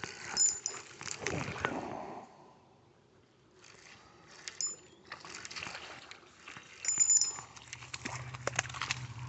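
Spinning reel being handled: scattered clicks and rattles of the bail and handle, with short high metallic pings three times.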